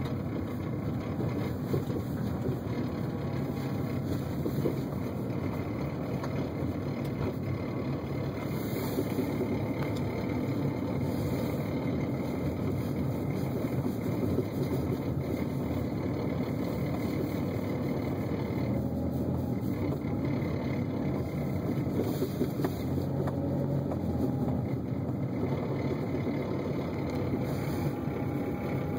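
Steady running noise heard inside a 2010 Kia Rio, with a noise from under the dashboard that sounds like something loose.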